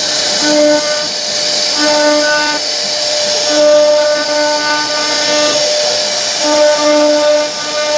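CNC router spindle cutting wood: a steady high hiss, with a pitched hum that switches on and off in stretches of half a second to two seconds as the machine moves.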